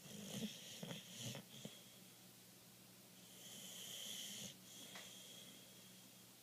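A sleeping Boxer dog snoring: a quick run of short snorts in the first second and a half, then one longer wheezy breath about three seconds in, and a last small snort near five seconds.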